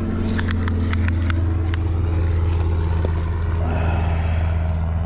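A steady low engine hum, like an idling motor, runs throughout. A quick run of sharp clicks comes about half a second to a second and a half in.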